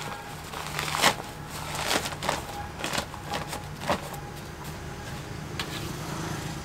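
Potting mix being handled in a planter bag: scattered dry crunches and knocks at irregular intervals over a steady low hum.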